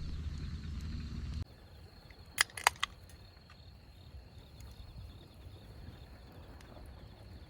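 A steady low rumble cuts off abruptly about a second in. Then come four sharp clicks in quick succession, followed by quiet outdoor ambience with a faint high, evenly repeating chirr.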